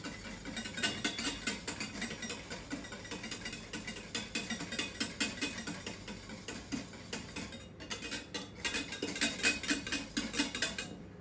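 Wire whisk beating quickly against the inside of a stainless steel saucepan, a fast run of light metallic clicks with a couple of brief pauses in the last few seconds. Warm broth is being whisked into beaten egg to make avgolemono sauce, and the constant whisking keeps the eggs from scrambling.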